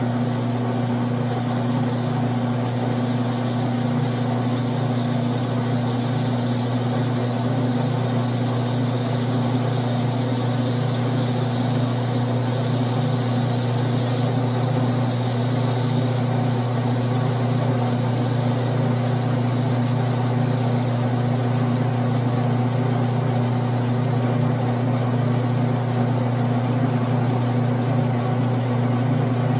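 Grizzly G9972Z benchtop lathe running steadily with a strong, even hum while its tool takes a facing cut across a 6061 aluminum disc.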